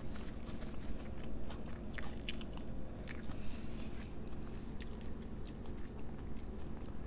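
Close-miked chewing of a mouthful of food, with many short mouth clicks.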